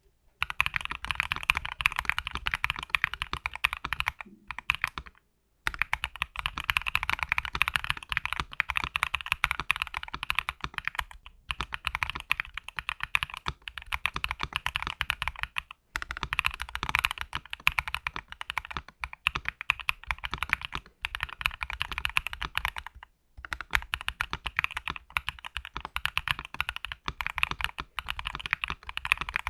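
Typing test on a mechanical keyboard fitted with Wuque Studio WS Quartz factory-lubed linear switches (polycarbonate housings, nylon stems): fast runs of keystrokes with a deep, solid, thocky bottom-out and top-out, broken by brief pauses every few seconds.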